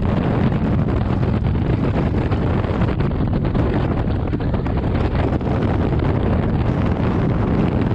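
Wind rushing over a camera microphone in skydiving freefall: a loud, steady noise with no break.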